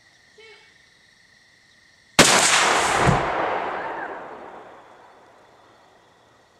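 .223 Bushmaster rifle shot hitting a propane tank, which bursts into a fireball: a sudden sharp crack about two seconds in, then a heavy rushing blast that dies away over about four seconds.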